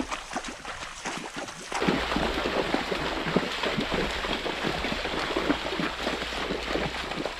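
Shallow river water running over stones. About two seconds in, this gives way to horses wading through the shallow river, their hooves splashing in the water in a dense, irregular patter.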